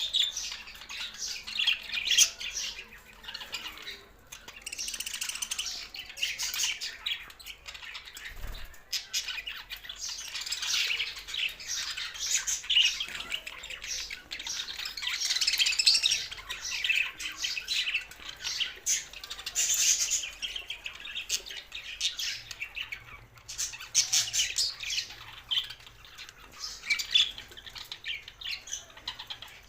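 A group of budgerigars chattering continuously, with fast warbles, chirps and squawks overlapping.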